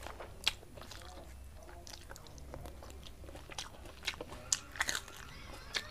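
Close-up chewing and mouth sounds of someone eating rice and soya chunk curry by hand, with scattered sharp clicks and smacks. The loudest come about half a second in and again near the end.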